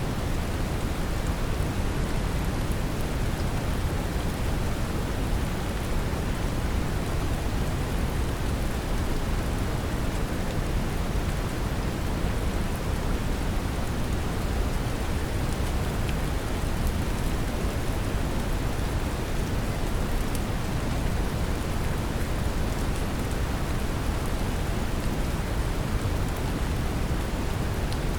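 Steady brown noise mixed with gentle rain: an even, unchanging rumbling hiss, strongest in the low end.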